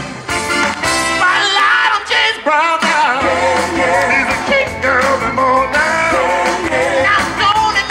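Upbeat rock-and-roll band music with male voices singing over it, some notes held and wavering.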